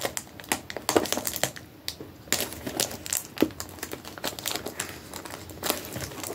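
Foil Pokémon booster pack wrappers crinkling as they are handled and opened, a busy run of irregular crackles.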